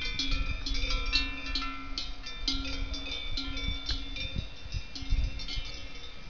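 Many cowbells worn by cows clanking and ringing at irregular moments, their tones overlapping, with one lower-pitched bell sounding on and off among them.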